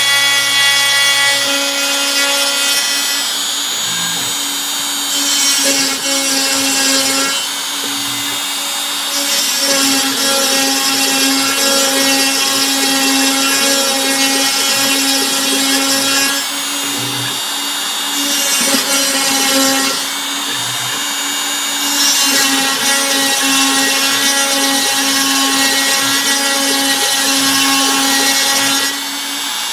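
Bosch Colt trim router spinning a 1/8-inch single-flute end mill on a CNC router, cutting into wood shelving board. A steady high motor whine runs throughout, with stretches of louder cutting noise every few seconds as the bit moves through the material. The cutting noise eases off near the end.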